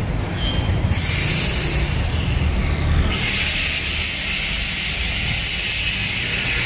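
A steady hiss over a low street-traffic rumble; the hiss starts suddenly about a second in and grows much louder about three seconds in.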